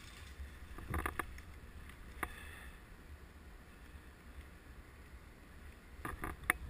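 Low, steady wind rumble on the microphone, with a few short, sharp clicks: a small cluster about a second in, a single click a second later, and another cluster near the end.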